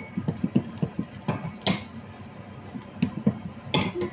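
A glass lid being handled on a frying pan: a run of small irregular clicks and knocks, with two sharper clatters, one about midway and one near the end.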